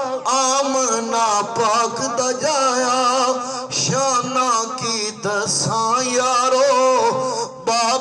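A man singing a Punjabi devotional naat through a microphone and loudspeaker, holding long, wavering, ornamented notes, with a brief break near the end.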